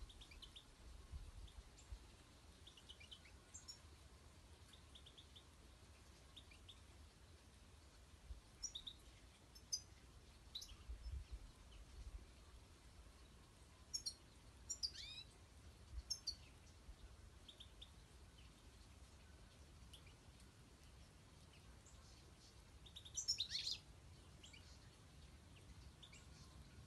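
European goldfinches calling: faint, scattered short chirps and twitters, with a louder run of calls near the end.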